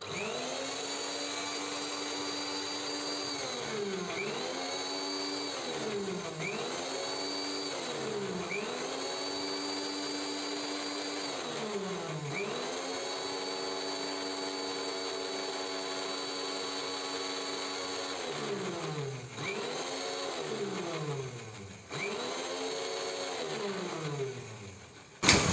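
Electric mixer grinder with a steel jar, pulsed repeatedly in reverse to whip egg, garlic and sunflower oil into mayonnaise. The motor's whine drops in pitch and climbs back up about eight times as it is switched off and on again.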